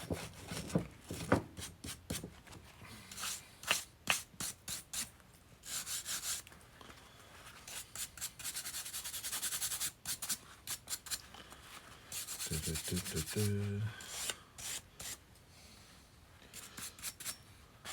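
Greasy metal parts of a Kurt 5-inch milling machine vise being scraped and rubbed by hand to clean off caked goo. It is a run of short scrapes and knocks, with a longer stretch of steady rubbing in the middle.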